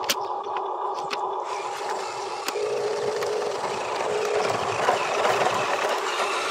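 Electric motor and gearbox of a Huina RC dump truck whining steadily, with a few sharp clicks in the first couple of seconds and a grittier rattle joining in about halfway through.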